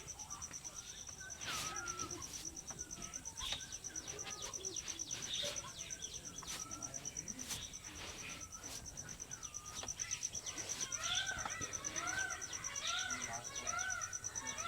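Birds chirping outdoors, with a run of repeated rising-and-falling calls in the second half, over a steady high pulsing insect trill. Scattered sharp taps come through the whole time.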